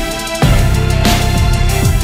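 Action-film score: electronic music over a heavy bass. The bass drops out briefly at the start and comes back in strongly about half a second in, with falling sweeps.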